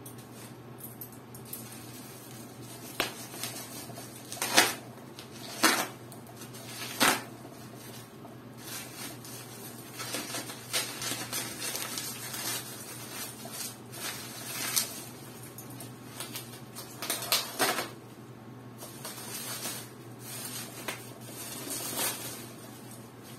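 Bubble wrap and packing tape rustling and crackling as a taped, bubble-wrapped parcel is cut and pulled open by hand, in short irregular bursts every second or two.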